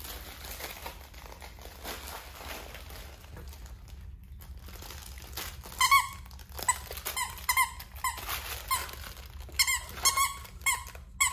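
Squeaker in a plush dog toy squeaking over and over, in short irregular squeaks, as an Airedale terrier puppy chews it; the squeaking starts about halfway through.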